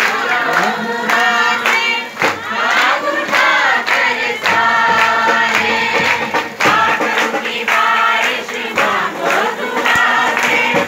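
A worshipping congregation singing and calling out together, many voices loud at once, over a steady held note.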